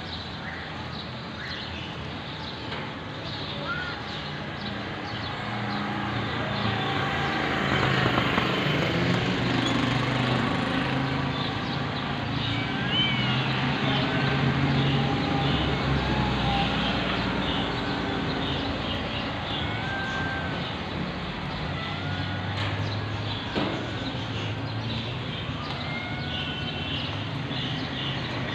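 Low engine hum of passing motor traffic, growing louder about a quarter of the way in and then easing off, with short bird chirps scattered over it.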